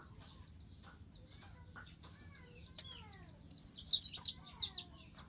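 Birds calling: several falling calls about two seconds in, then a burst of high chirps with sharp clicks near the end, the loudest part.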